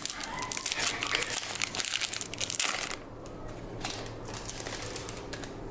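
Foil wrapper of a Pokémon booster pack crinkling and tearing as it is opened, for about three seconds, then quieter handling with a few light clicks.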